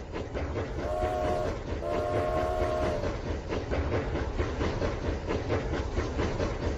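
Rail King toy train running along its track with a steady clattering rattle. Its electronic horn sounds twice about a second in, a short toot and then a longer one.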